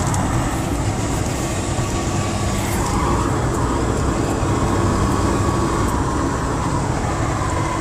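Four-wheel drive vehicle running steadily on the road, its engine and tyres making a continuous low drone.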